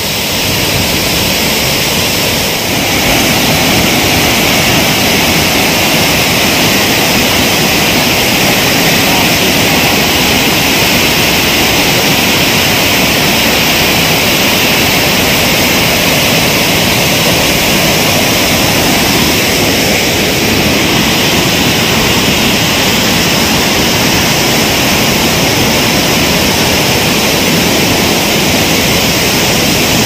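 Loud, steady rushing of a big waterfall in full monsoon flow, heard close to the falls.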